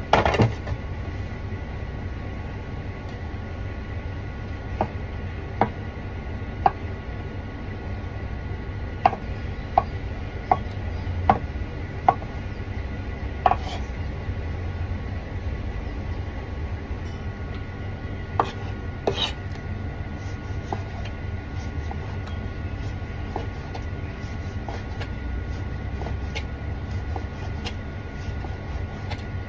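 Chinese cleaver slicing mushrooms and then raw chicken breast on a wooden chopping board: the blade knocks on the board in scattered, irregular taps over a steady low hum.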